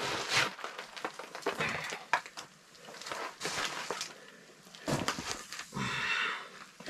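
Rustling and scattered light knocks of a net fish cradle holding a burbot being hoisted and handled on a digital hand scale.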